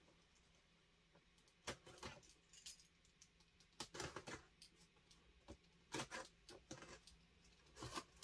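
Utility knife cutting packing tape on a cardboard box: short scratchy cuts and small taps at irregular intervals, beginning after a quiet second or so.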